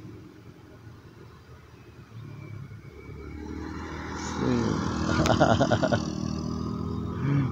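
A motor vehicle's engine approaching and passing close by on the road, growing louder and then dropping in pitch as it goes past.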